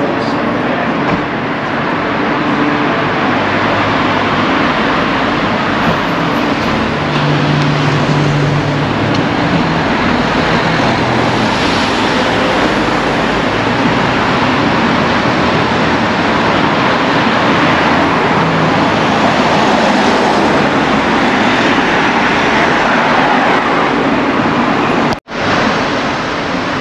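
Steady road traffic, with cars and other vehicles passing close by and a low engine hum that swells briefly about a third of the way in. The sound cuts out for an instant near the end.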